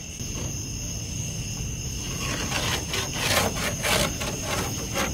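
Short, irregular scratching strokes, several a second from about two seconds in, of a pencil marking a cutting line along a straightedge on plywood. A steady high-pitched tone runs underneath.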